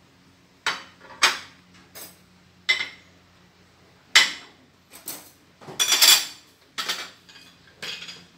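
Plates, cups and cutlery clinking and clattering as dishes are handled on a serving tray: about ten sharp clinks, with a longer rattle about six seconds in.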